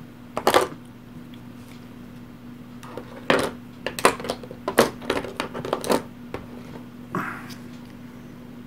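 Small plastic miniatures and their packaging being handled, giving a string of sharp, irregular clicks and clacks against a steady low hum.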